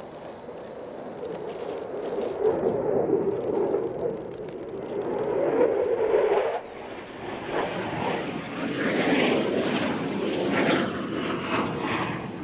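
Aircraft engine noise, swelling and easing in level.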